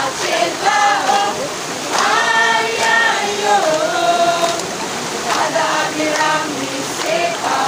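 A large mixed group of men and women singing together in unison, with the steady rush of a waterfall's water underneath.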